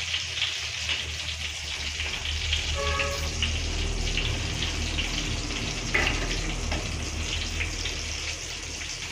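An eggplant-and-egg omelette sizzling and crackling as it fries in hot oil, with a steady low hum underneath and a sharper pop about six seconds in.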